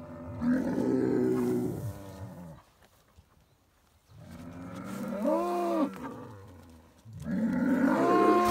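Jersey bull bellowing: three long, drawn-out calls, each rising and falling in pitch. The bull is pawing and horning the dirt at the same time, which is a bull's challenge or dominance display.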